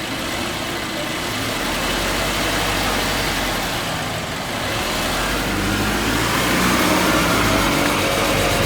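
2018 Subaru Impreza's flat-four engine running in drive with the car on jack stands, its wheels spinning freely off the ground, giving a steady low hum and whir from the wheels and drivetrain. The engine speed and hum rise gradually through the second half as it is given gas, during a run-up to pick out a worn, humming wheel bearing.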